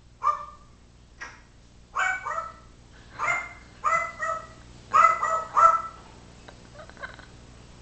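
Caged parrot calling: a string of about ten short, sharp calls, in ones and quick pairs and threes, loudest about five seconds in.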